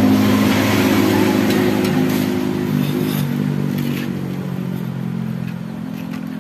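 A motorcycle rides past on a wet road, its engine and tyre hiss loudest at first and fading over the next few seconds. A low, steady engine hum carries on underneath.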